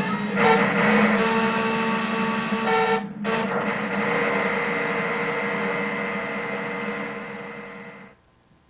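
Circuit-bent Yamaha PSS-790 vector synthesizer putting out a dense, glitchy buzz with steady pitches held inside it. It breaks off briefly about three seconds in, then fades and cuts out about eight seconds in.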